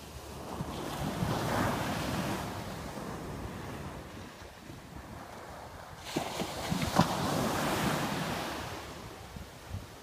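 Sea surf on a sandy beach: small waves break and wash up the sand, the surf swelling about a second in and again about six seconds in, then fading near the end. Wind buffets the microphone.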